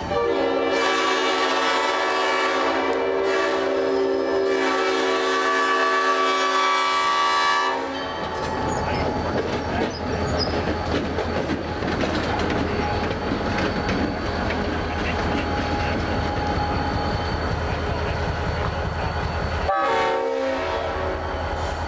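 Five-chime Leslie air horn sounding one long chord blast of about eight seconds. It is followed by the rumble and rail clatter of the moving train, with one short horn toot near the end.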